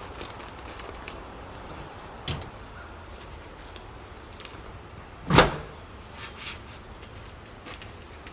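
A few sharp knocks over steady low background noise, the loudest a single heavy thud about five seconds in, followed by two softer knocks.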